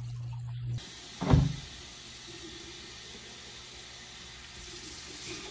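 A sharp knock about a second in, then water running steadily from a lab sink faucet into a plastic jug.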